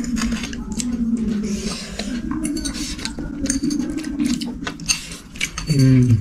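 Cutlery and plates clinking during a meal, in many short clicks, with a brief voice sound near the end.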